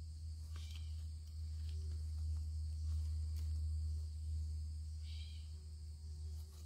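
A few faint clicks and scrapes of stones and dirt being picked at by hand in a rock face, over a steady low rumble and a faint steady high insect drone.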